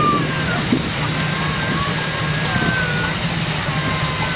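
Steam ploughing engine working, a steady mechanical running noise, with faint thin wavering higher tones over it.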